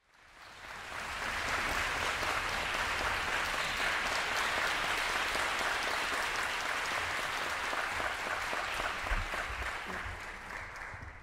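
Audience applauding, building up over the first second or so and tapering off near the end.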